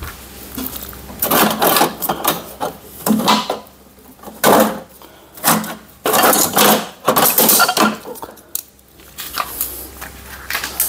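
Metal tools clinking and scraping in irregular bursts of about a second each, as a wrench works at an Allen screw that keeps spinning instead of loosening.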